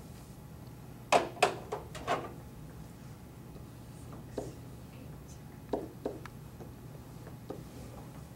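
Marker tip knocking and tapping against a whiteboard while digits are written: four sharp knocks in quick succession about a second in, then lighter, scattered taps.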